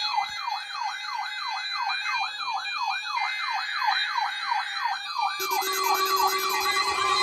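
Weather alert radios sounding their alarm for a NOAA Weather Radio weekly alarm-tone test: a siren-like tone sweeping up and down about three times a second. A second alarm with steady tones joins about five seconds in.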